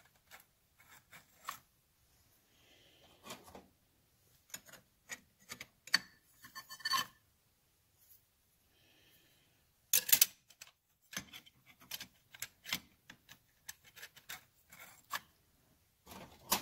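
Motorcycle clutch plates, bonded friction discs and steel discs, being slid by hand onto the splined clutch hub and into the basket tangs. There are scattered metallic clicks, clinks and short scrapes, with the loudest clatter about ten seconds in.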